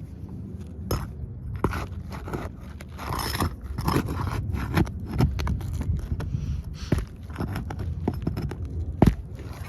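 Gritty scraping and irregular knocks on asphalt roof shingles, with a sharp knock near the end.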